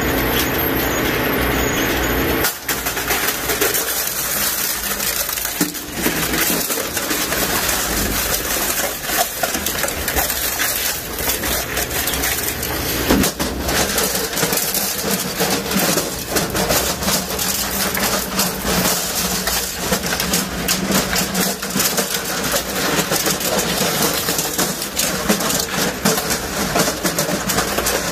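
A 150 HP SSI M85 dual-shaft shredder running, a steady mechanical drone with a low hum and frequent sharp clicks and rattles.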